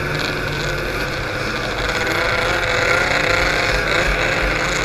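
Snowmobile engine running at racing speed, heard close up from onboard the sled, its pitch wavering slightly as the throttle changes.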